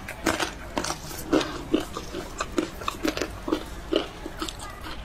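A person chewing food close to the microphone: short, wet, crunchy chews repeating about two to three times a second, over a low steady background hum.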